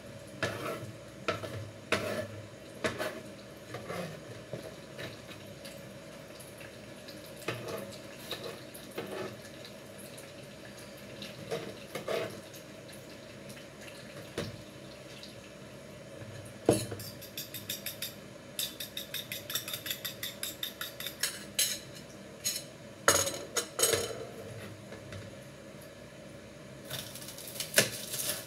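Kitchen utensils clicking and knocking on a plastic cutting board and a glass bowl, with a fast even run of clinks as the beaten egg in the glass bowl is stirred. Near the end, a knife cutting into a red onion on the cutting board.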